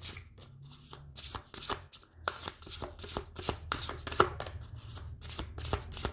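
A deck of Woodland Wardens oracle cards being shuffled by hand: quick, uneven soft card slaps and riffles, several a second, with a brief pause about two seconds in.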